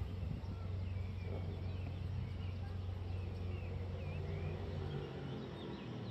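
Outdoor street ambience: a steady low traffic hum with small bird chirps over it. The hum eases off about five seconds in.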